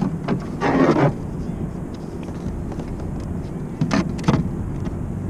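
Handling noises on a fishing kayak while a spotted bay bass is held up and brought to a measuring board: a short rustling scrape about half a second in and two sharp knocks around four seconds in, over a steady low rumble.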